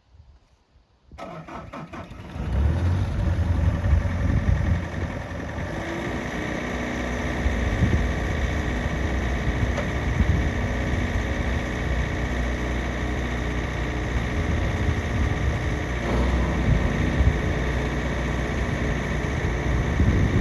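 The 2015 Bobcat S530 skid steer's 49 hp Kubota diesel engine cranks about a second in and catches, running up briefly. It then settles into a steady idle.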